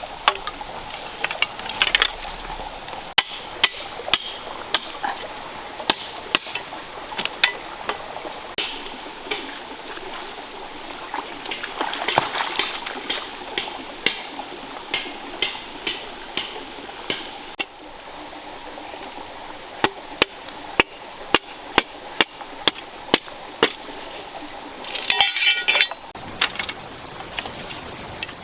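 Repeated sharp clinks and knocks of cooking utensils, coming irregularly about once or twice a second over the steady rush of running water. About three-quarters of the way through there is a brief, louder ringing scrape.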